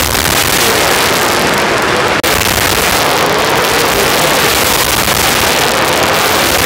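A field of dirt late model race cars running around the dirt oval, their V8 engines making a loud, continuous din. The sound cuts out for an instant about two seconds in.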